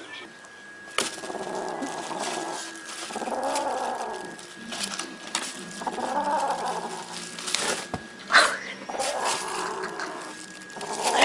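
A cat growling and yowling in long, drawn-out calls, several in a row, as it pulls raw meat out of a plastic shopping bag. Sharp crackles of the plastic bag are heard between the calls, the loudest a little over eight seconds in.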